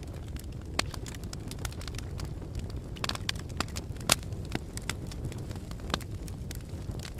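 Wood fire crackling: irregular sharp pops and snaps over a low steady rumble, with the loudest pops about a second in and again about four seconds in.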